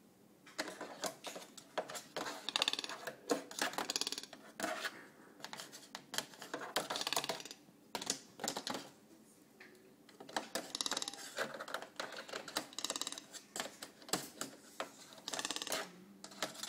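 A toco toucan's bill tapping and clattering against the plastic and metal parts of a coffee machine, in irregular flurries of sharp clicks with short pauses between them.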